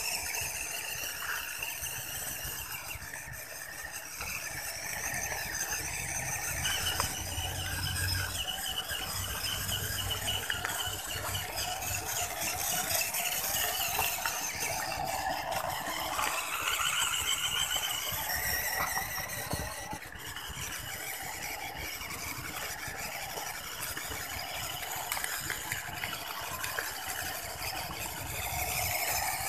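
MN99S 4WD RC car's electric motor and gears whining as it drives on asphalt, the whine rising and falling in pitch as it speeds up and slows, over the hiss of its small tyres on the pavement.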